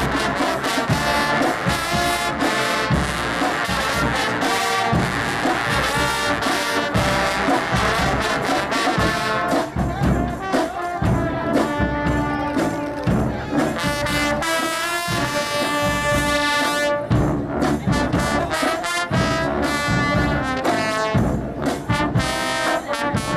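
A low brass choir, a massed band of low brass horns, playing together: held chords shifting every second or so over a steady rhythmic pulse.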